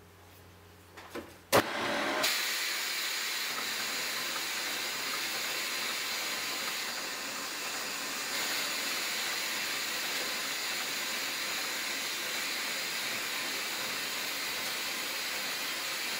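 A click, then a vacuum cleaner running steadily, its suction drawing air through a 3D-printed diaphragm-piston air engine with a rotary valve to keep the engine turning.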